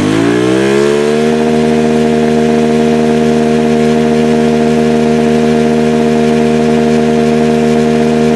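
Honda Activa scooter's single-cylinder four-stroke engine, fitted with an open pod-type power filter in place of the stock air filter, revving up over about the first second and then held steady at high revs.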